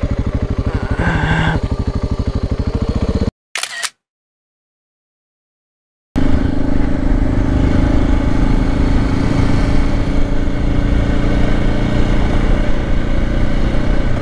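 Dual-sport motorcycle engine idling with even firing pulses; about three seconds in the sound cuts to dead silence, broken once by a brief camera-shutter click. Near the middle the motorcycle comes back in, its engine running steadily under way with a held low drone.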